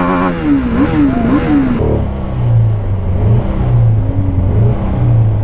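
BMW G310RR's single-cylinder engine being revved, its pitch rising and falling several times in quick blips. After about two seconds the sound turns duller, and the engine is held up in three short pushes.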